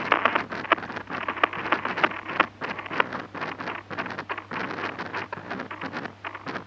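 Male small copper butterfly pupa making sounds: a dense, irregular run of sharp clicks and crackles, some much louder than others, over a faint steady low hum.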